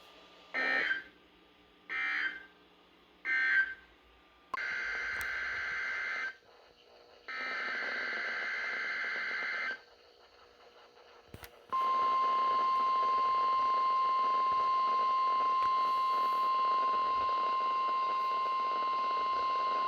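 NOAA Weather Radio alert signals received over a radio: three short warbling SAME digital data bursts (end-of-message code), then two longer data bursts (a message header). Then the steady 1050 Hz warning alarm tone sounds as one long beep for about nine seconds, signalling a weekly test.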